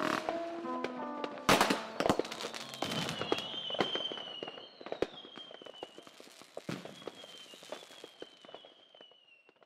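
Fireworks crackling and popping, with a couple of loud bangs early on, then thinning out and fading away; a thin high whistle holds through it, slowly falling in pitch. A lo-fi beat stops about a second in.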